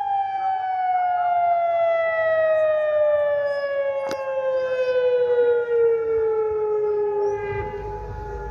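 Tsunami warning siren sounding one long tone that slowly falls in pitch. A click comes about four seconds in, and near the end a steady higher tone and a low rumble join it.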